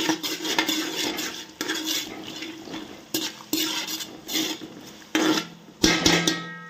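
A metal spoon stirring and scraping onions, ginger-garlic paste and green chillies frying in oil in a metal cooking pot, in repeated strokes with knocks against the pot. A couple of louder clanks about six seconds in, followed by a short ring.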